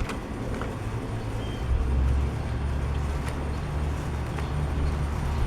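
Low, steady rumble of a motor vehicle running nearby, growing louder about two seconds in, with a few faint clicks.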